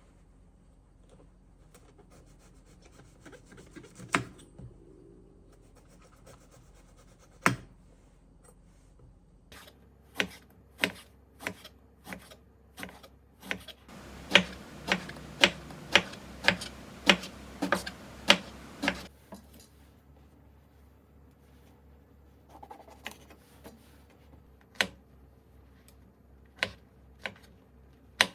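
Kitchen handling sounds: scattered sharp knocks with rubbing and scraping between them, then a steady run of about ten louder knocks, roughly two a second, for about five seconds in the middle.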